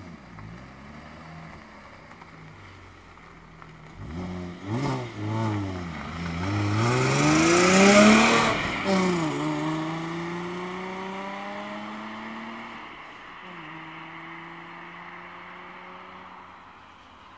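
Audi A4 V6 with its catalytic converter removed: the engine is revved in a few quick bursts, then pulls hard with rising pitch and is loudest as the car passes, about halfway through. It shifts up twice, with a drop in pitch each time, and fades as it drives away.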